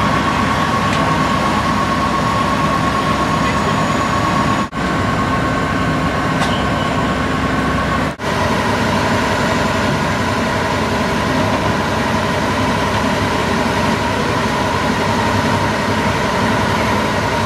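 Parked fire trucks' engines running steadily, a constant heavy drone with a steady high whine over it. The sound cuts out for an instant twice, about five and eight seconds in.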